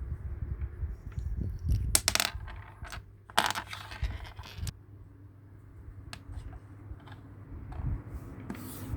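Small hard plastic toy pieces being handled, with scattered sharp clicks and taps and two brief bursts of clattering, about two seconds in and again near four seconds.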